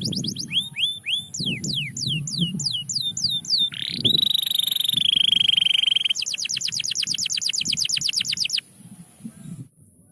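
Domestic canary singing in rapid tours: fast runs of repeated down-sweeping notes, then a long note that rises and is held for about two seconds, then another fast rolling trill that stops abruptly about two-thirds of the way through, over a low background rumble.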